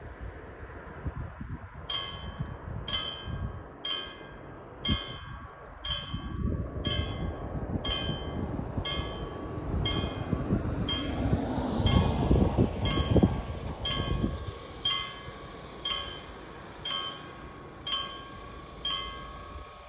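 Railway level-crossing warning bell starting to ring about two seconds in, a steady stroke about twice a second: the crossing has activated for an approaching light rail train. A low rumble swells and fades behind it in the middle.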